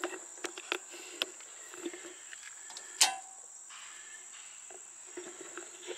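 Insects chirping in a steady high drone, with light knocks from steps and handling and one sharp click about three seconds in as the outdoor breaker panel is handled.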